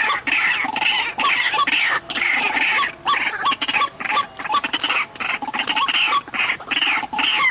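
White-breasted waterhens (ruak-ruak) calling, a long run of harsh, repeated notes at about two a second: the bird's territorial chorus, as played and answered when luring the species to a trap.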